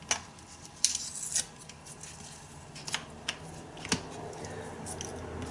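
Small plastic clicks and a short scrape from a Nest E Heatlink being handled as the insulating tab is pulled out from under a AA battery terminal. There are scattered sharp clicks, with the scrape about a second in.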